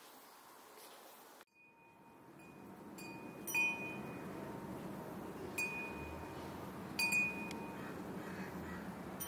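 Chimes ringing: scattered light metallic strikes every second or two, each ringing briefly, over a soft steady background hiss. The chimes start after faint room tone that cuts off about a second and a half in.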